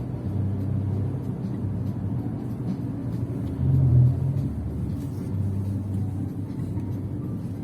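Car on the move: a steady low engine and road rumble, with a brief louder swell about four seconds in.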